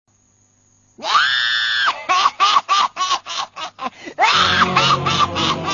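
A witch's high-pitched shriek starting about a second in, followed by a rapid cackling laugh of about four cackles a second. Near the end a second shriek and more cackles come over film music with a low drone.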